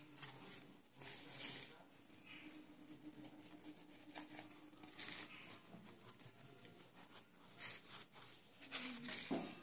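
Table knife cutting through a soft egg-and-batter pancake and scraping against the plate: faint, scattered scrapes and taps.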